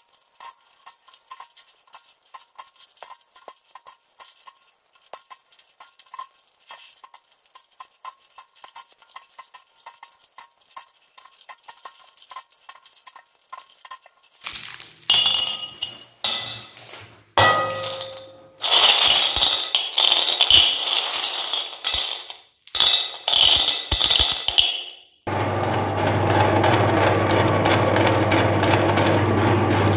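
Hard candies being unwrapped, with crinkling plastic wrappers and small clicks as the candies drop into a plastic bowl. About halfway through come several loud bursts of clattering and clinking, and about five seconds before the end a meat grinder's motor starts and runs with a steady hum.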